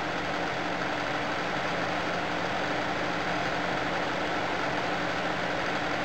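Steady whir of fans with a faint low electrical hum under it, from a homemade induction heater built from microwave oven inverter parts running under load as it heats a tin can.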